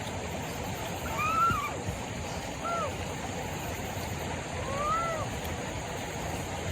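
Water running steadily, as in a stream, with three short rising-and-falling calls over it about one, three and five seconds in.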